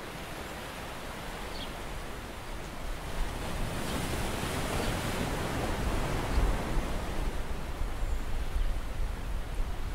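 Steady rushing wash of shallow seawater, growing louder from about three seconds in.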